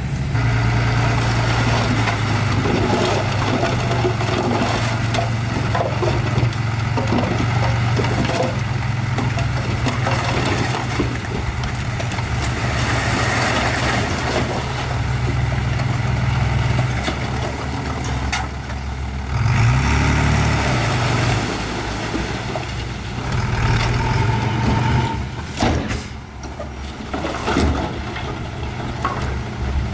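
Small old bulldozer's diesel engine running steadily, with rock scraping and clattering as the blade pushes it. The engine pitch rises briefly about two-thirds of the way through.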